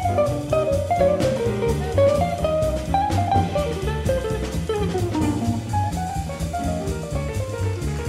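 Jazz guitar solo on a sunburst hollow-body archtop electric guitar: quick single-note bebop lines with a long falling run about halfway through. Double bass and drum kit play underneath.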